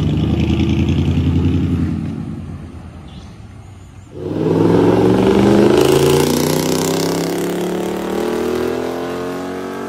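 2020 Toyota Tundra's 5.7-litre V8 through a Fi valvetronic cat-back exhaust. The truck pulls away and its sound fades over the first few seconds. About four seconds in, the sound jumps abruptly to a hard acceleration, the exhaust note rising steadily in pitch and slowly fading as the truck moves off into the distance.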